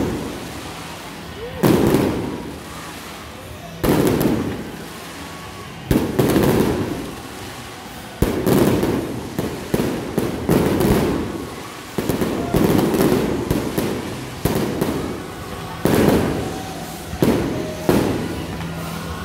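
Aerial fireworks going off overhead in a steady barrage: a loud bang every one to two seconds, about a dozen in all, each followed by a fading rumble.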